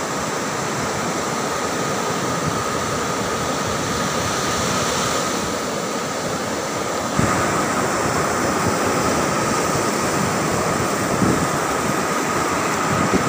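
Sea surf washing onto a sandy beach, a steady rushing wash, with wind on the microphone. A faint steady high tone runs underneath, and the sound gets a little louder and brighter about seven seconds in.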